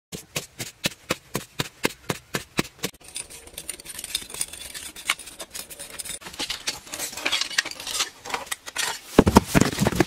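A tool striking dry, crumbly earth in a quick even rhythm, about four strikes a second, giving way to scraping and rustling with scattered clicks. A few heavy thumps come near the end.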